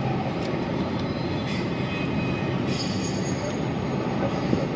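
Train passing, with a steady rumble of wheels on rails; a faint high wheel squeal comes in about three seconds in.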